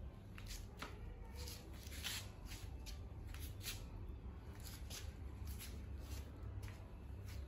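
Soft scuffing and shuffling steps on a tile floor, irregular, about two a second, over a low steady hum.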